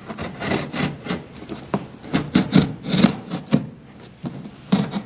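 Razor knife blade cutting through corrugated cardboard in a quick run of short, uneven scraping strokes.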